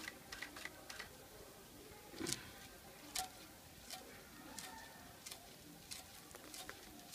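Hand-spun potter's wheel, a heavy disc turning on a wooden pivot, pushed round with a stick: irregular light clicks and knocks, the loudest a little after two and three seconds in.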